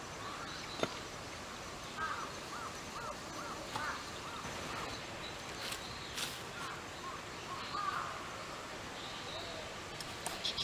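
A bird calling outdoors: a quick run of about five short, arched notes a couple of seconds in, with scattered calls afterwards, over a steady background hiss. A few sharp clicks stand out, about a second in and around six seconds in.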